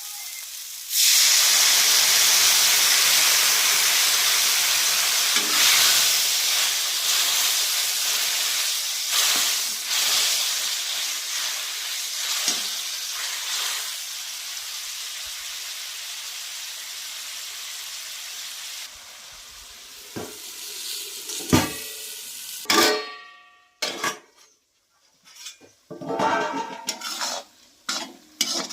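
Food sizzling in hot oil in a pan. The sizzle starts suddenly about a second in and slowly dies down. In the last several seconds there are scattered knocks and scrapes of a utensil against the pan.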